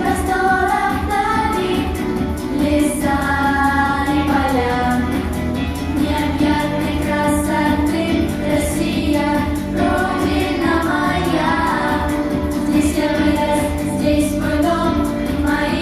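A song performed on stage: a high singing voice carrying the melody over an instrumental backing with a steady beat.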